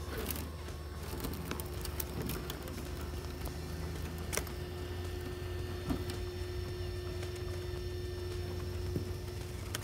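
Axial SCX6 RC rock crawler driving: a steady electric motor whine over a low hum, with scattered sharp clicks and knocks, the loudest about four and six seconds in.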